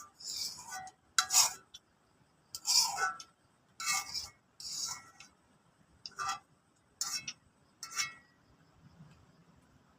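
A spoon scraping and clinking against a plate of fried rice, about eight short strokes roughly a second apart, each with a faint ring.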